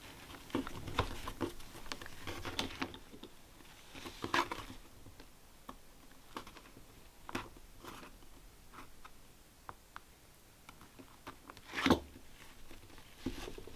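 Hands handling a linoleum block: scattered light clicks, taps and rubbing of fingers on the block and its woven jute backing, with a louder brief scrape about twelve seconds in.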